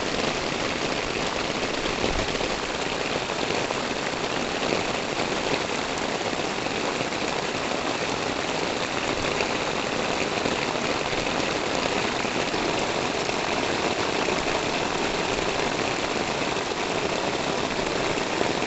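Steady rain falling on a concrete and tiled rooftop terrace and the surroundings, an even hiss that does not let up.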